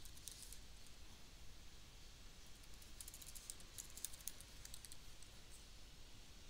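Faint computer keyboard typing: light, scattered key clicks in short clusters, busiest around the middle.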